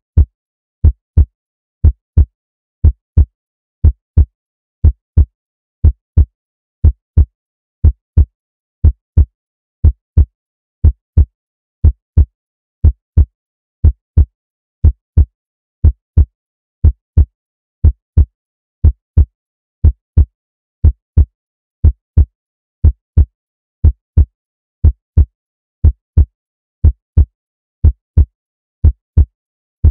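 Recorded heartbeat sound effect looping steadily at about one beat a second, each beat a low lub-dub double thump.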